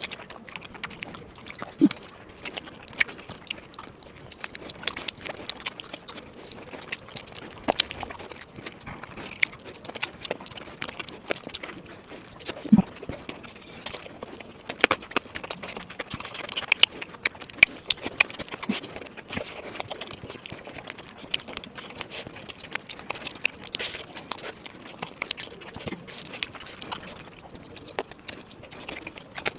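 A person chewing and smacking their lips while eating chicken biryani, with a steady run of irregular wet clicks and smacks.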